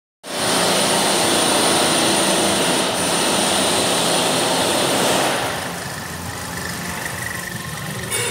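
Suzuki Vitara 2.4-litre four-cylinder engine running, heard close up with the bonnet open, under a loud steady rushing noise. A little past five seconds in the rushing drops away, leaving the quieter engine and a faint steady high whine.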